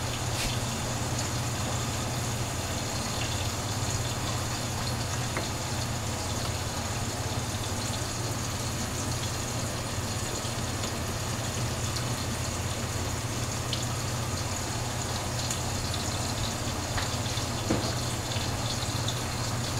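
Steady rushing noise with a low hum from the stovetop while pots cook on the heat.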